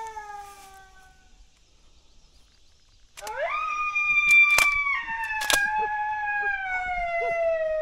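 A coyote howl: a short falling howl at the very start, then after a pause one long howl that rises, holds, steps down and slides slowly lower for nearly five seconds. Two sharp cracks sound during the long howl.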